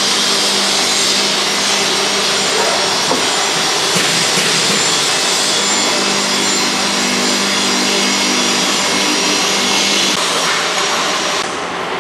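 Electric agitator motor of a lab-scale stainless-steel process kettle running steadily, with a constant hum, as it turns the paddle through a hot yellow mixture. The noise drops a little near the end.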